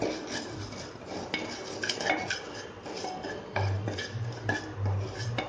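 Wooden spatula scraping and knocking against the bottom of an aluminium pressure cooker as split moong dal is stirred and roasted in ghee, giving irregular clicks and scrapes. A low hum comes and goes in the second half.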